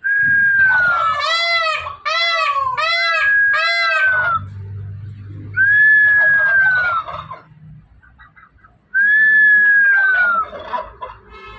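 Indian peafowl of the black-shouldered variety calling loudly. Drawn-out calls that sag slightly in pitch come near the start, about six seconds in and about nine seconds in, with a quick run of four short repeated calls between one and four seconds.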